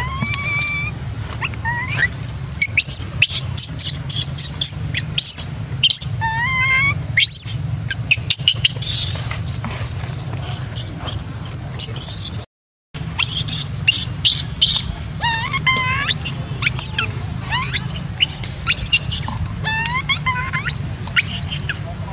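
Infant long-tailed macaque crying in repeated high, squeaky calls: short sharp shrieks mixed with wavering whimpers that rise and fall in pitch, over a steady low hum.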